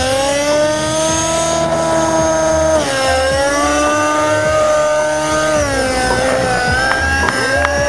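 Align T-Rex 600N nitro RC helicopter in 3D flight: its glow engine and rotor whine steadily, the pitch rising and falling with the manoeuvres. The pitch dips about three seconds in and again near six seconds.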